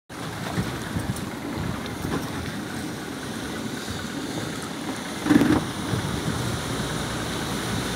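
Wind rushing over the microphone on top of the wash of sea swell breaking on rocks and slapping around a small boat, with a brief louder burst about five and a half seconds in.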